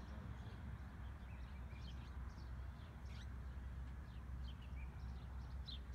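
Small birds chirping in short, scattered calls over a steady low rumble.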